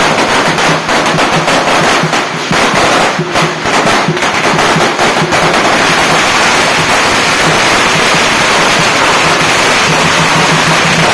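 A string of firecrackers going off in fast crackling bangs, which run together into a continuous dense crackle from about halfway through.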